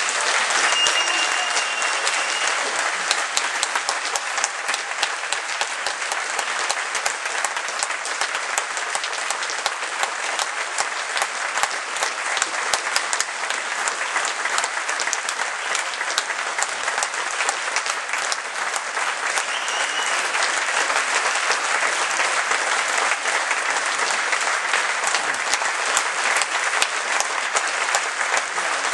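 Opera-house audience applauding after the orchestral finale ends: a dense, steady patter of many hands clapping.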